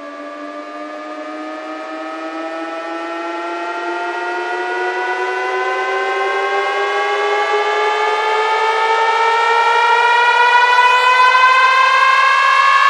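Siren-like rising effect at the start of a DJ sound-check track: a tone with many overtones glides slowly upward in pitch and grows steadily louder, building up toward the drop.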